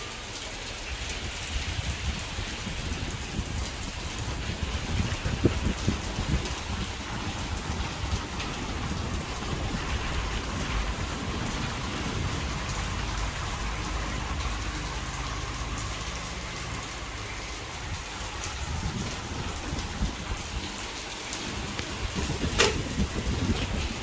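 CRF 3030 turbo electric fan running, its blast of air buffeting the microphone as an uneven, low rumbling rush. A single sharp click near the end.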